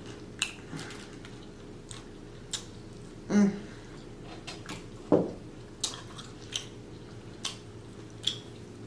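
Close-miked chewing and mouth sounds, with scattered short wet clicks and two brief louder mouth sounds about a third and halfway in.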